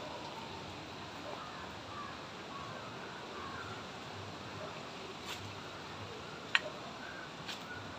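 Steady background hiss with scattered short bird calls, and one sharp click about six and a half seconds in.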